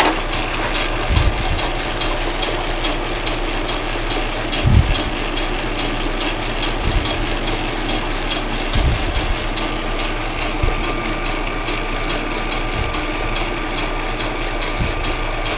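Metal lathe running with a steady fast gear rattle while a parting tool cuts through the spinning workpiece to part it off, with a few brief low thumps along the way.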